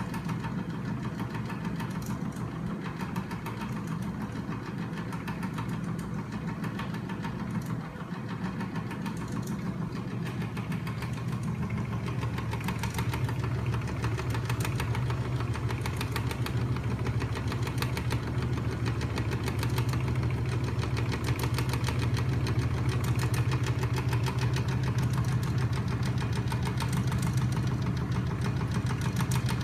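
Homemade magnet-motor machine of flywheels, crankshaft and rocking linkages running steadily: a fast, even clatter of its moving parts over a low motor hum. The hum shifts up in pitch and gets a little louder about halfway through.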